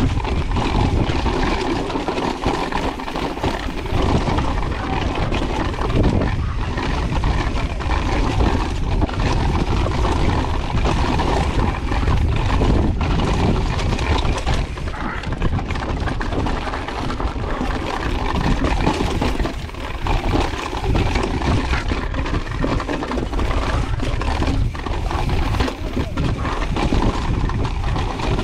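2022 Pivot Firebird mountain bike running fast down a rocky trail: tyres crunching over loose rock and gravel, with a constant irregular clatter and rattle of the bike over the jolts, and rushing noise over the microphone.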